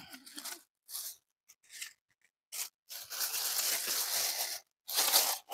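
Thin plastic bag rustling and crinkling in short bursts as it is spread open and handled to pack culantro bundles, with one longer stretch of rustling in the middle.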